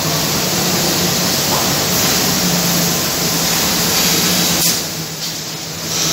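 Steady rushing noise of woodworking machinery with a low hum, typical of a CNC panel machine's dust extraction running. A sharp click comes about four and a half seconds in, and the noise drops for about a second after it.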